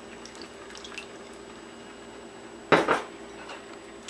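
Condensed chicken noodle soup sliding from a bowl into a pot of hot soup with faint wet drips, then two loud clinks against the pot close together about three seconds in.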